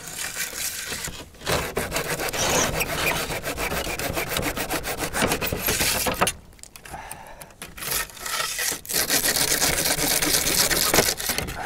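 Roof-tooth slate ripper, a thin blade with a hacksaw edge, sawing rapidly back and forth under a roof slate to cut through the nails that hold it. The strokes stop for a second or two about six seconds in, then start again.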